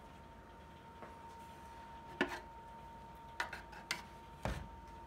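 Red end cover of a Central Machinery 7x10 mini lathe being unclipped and lifted off the change-gear train: a few light clicks and knocks, the heaviest about four and a half seconds in. A faint steady high hum runs underneath.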